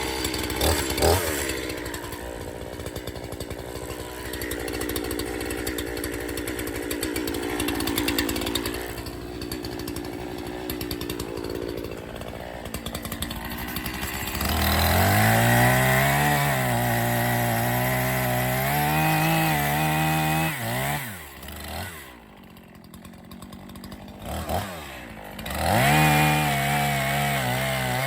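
Echo CS501P two-stroke chainsaw idling steadily, then throttled up at about 14 seconds in to a high, loud run whose pitch dips and recovers as the chain cuts into the wood. It drops back to idle just after 20 seconds, gives a short blip, and is throttled up again near the end.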